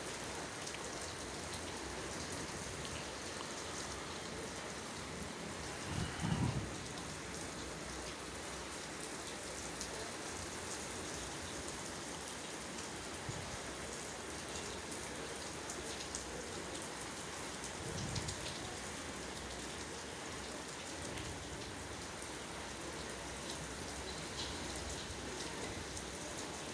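Steady rain falling and pattering on surfaces, an even hiss throughout. A brief low rumble comes about six seconds in and again around eighteen seconds.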